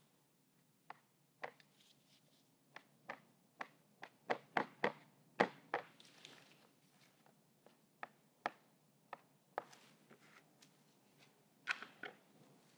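A scattered series of light, sharp taps, thickest around the middle, as a crumpled paper towel is dabbed and pressed against a painting's hard, textured surface on a tabletop.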